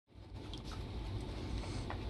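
Brittany spaniel puppy nosing at tennis balls in a metal muffin tin, with a few soft clicks and scuffs over a steady low rumble.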